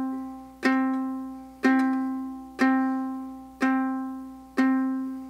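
Ukulele's open C string struck downward with the back of a fingernail in clawhammer style: five strikes on the same note, about one a second, each ringing out and fading before the next.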